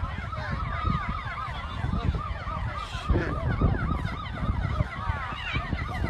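Several emergency-vehicle sirens yelping over one another in quick rising-and-falling sweeps, over a steady low rumble.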